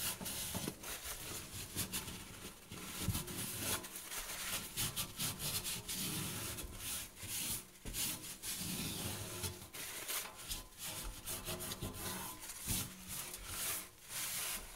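Paper towel rubbing and scrubbing around the rim of a stainless steel sink drain opening, wiping off old plumber's putty; an irregular, continuous scuffing that stops near the end.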